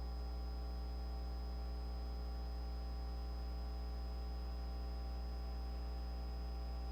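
Steady electrical mains hum with a thin, faint high whine above it, unchanging throughout.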